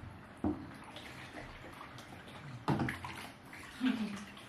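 Bathwater splashing in a bathtub as water is scooped with a small plastic cup and poured over a baby: two sudden splashes, about half a second in and just before three seconds in, over a low steady water sound.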